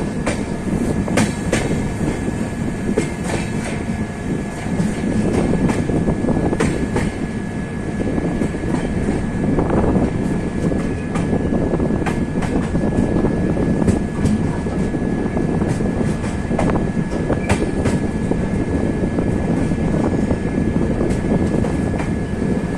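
Passenger train's wheels running on the rails, heard from aboard the moving coach: a steady loud rumble with irregular clicks and clatter as the wheels cross rail joints, and a thin steady whine throughout.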